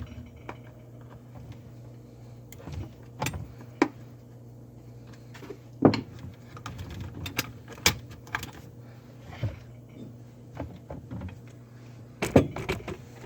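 Scattered small metal clicks, clinks and knocks as the electrical cover plate is worked off the underside of an old garbage disposal, the loudest about six seconds in and near the end. A low steady hum runs underneath.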